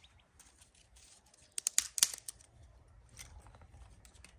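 Dry mesquite kindling snapping and crackling: a quick cluster of sharp cracks about a second and a half in, then a few fainter ones.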